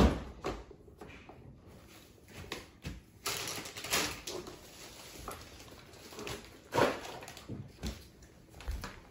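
Irregular plastic knocks, clicks and rattles as the ladder of a toy fire truck is handled and moved, with a sharp knock at the very start.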